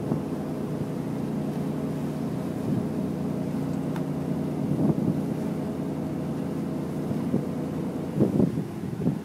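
Passenger ferry's engines running with a steady low hum of several tones, with wind noise on the microphone and a couple of brief louder sounds about five and eight seconds in.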